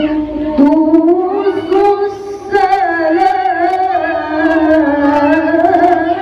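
A woman's voice reciting the Quran in the melodic qiraah style into a handheld microphone. She holds long, wavering, ornamented notes, with a short dip a little past two seconds in.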